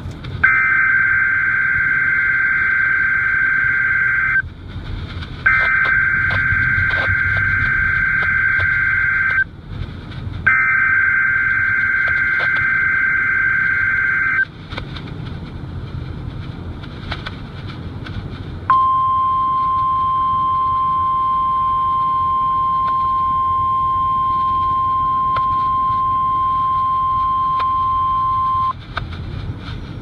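A Midland NOAA weather radio's speaker playing a Required Weekly Test: three digital SAME alert headers, each about four seconds of rapid two-tone data with a second's gap between them. After a pause comes one steady tone near 1 kHz lasting about ten seconds, the 1050 Hz weather alert tone.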